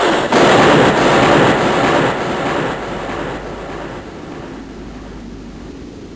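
A thunderclap: a sudden crack followed by a dense rolling rumble that stays loud for about two seconds and then fades away, leaving a steady hiss like rain.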